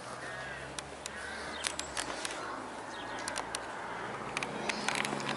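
Outdoor ambience with birds calling and many sharp clicks and knocks. A steady low hum starts about four seconds in.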